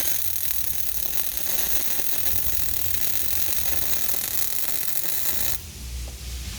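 Welding arc crackling steadily on half-inch plate, then cutting off sharply about five and a half seconds in as the arc is broken.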